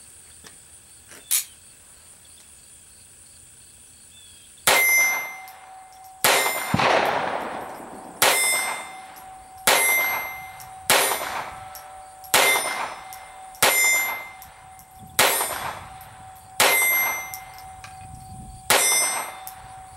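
Browning 1911-22 Compact .22 LR semi-automatic pistol fired ten times in slow, even succession, about one shot every second and a half, starting a few seconds in. A metallic ringing tone lingers after each shot. The pistol cycles each standard velocity round without a hitch.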